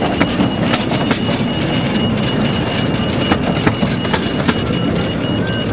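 Carriages of a 15-inch-gauge miniature railway running past close by: a steady rumble from the wheels, with irregular sharp clicks as they cross the rail joints and a thin, steady high-pitched tone.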